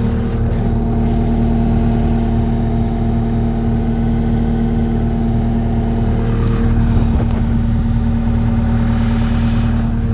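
2015 New Holland L228 skid steer's diesel engine running steadily at a constant speed.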